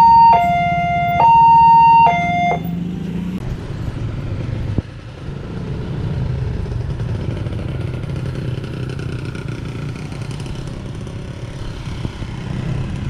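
Railway level-crossing warning alarm alternating between a high and a low electronic tone, each just under a second long, then cutting off about two and a half seconds in. After it, motorcycle engines run steadily as riders cross the tracks.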